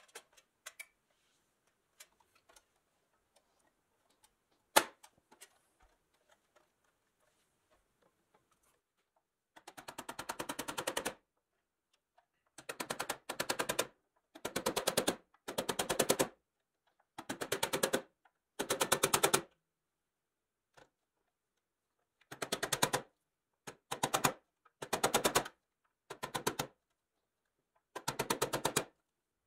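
A few light scattered taps and one sharper click as the metal toy body is handled. Then about ten short bursts of rapid mechanical clicking, each lasting around a second and getting louder as it goes.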